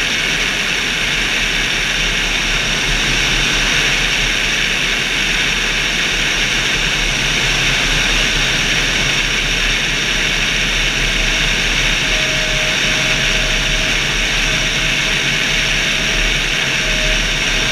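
Steady rush of airflow over a wing-mounted camera on a glider in flight, an even, unbroken wind noise.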